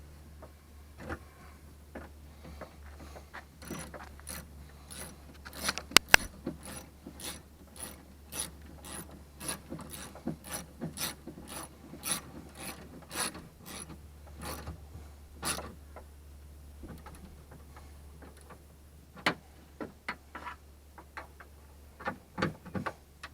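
Socket ratchet clicking in repeated strokes as a 10 mm nut on the door handle's mounting stud is run down, with two louder sharp clicks about six seconds in.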